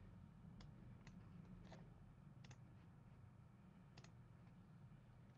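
Near silence: low room hum with a few faint, scattered clicks.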